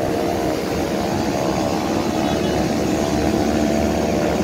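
Beechcraft King Air F90's twin turboprop engines running on the ground after landing: a steady, loud hum with a stack of propeller tones.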